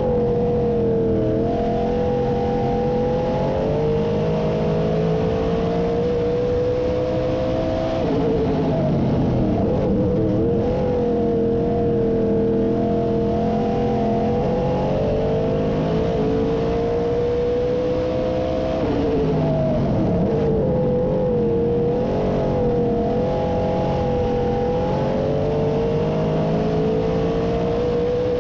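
358 small-block V8 of a dirt modified at racing speed, heard from inside the cockpit: the engine note holds high on the straights, drops twice as the driver lifts for the turns, and climbs back each time as he gets back on the throttle.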